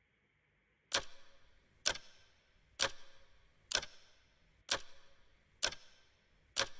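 Clock ticking about once a second, sharp ticks each with a short ringing tail, starting about a second in after near silence: a waiting-time ticking effect.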